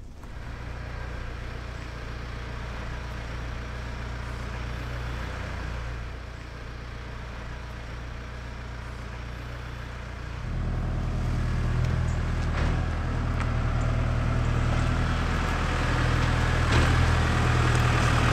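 Heavy lorry's diesel engine idling steadily, growing louder about ten seconds in, with a couple of short knocks.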